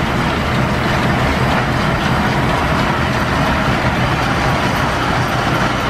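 Steady mechanical running noise of an old flat-belt, line-shaft-driven lathe turning a shaft, together with the shop's belts and machinery driven by the steam engine.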